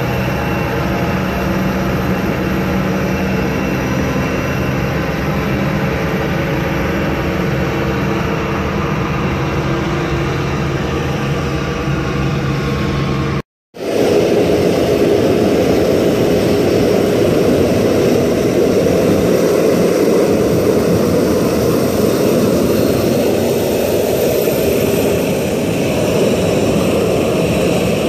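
Jet engines of an Interjet Airbus A320-family airliner taxiing close by, a steady roar with a few held tones. About halfway through it cuts off suddenly. A louder, steady jet roar follows: the CFM56 engines of an American Airlines Boeing 737-800 taxiing out.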